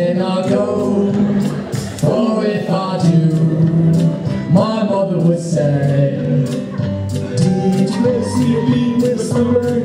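A man singing into a handheld microphone over backing music, with some notes held long.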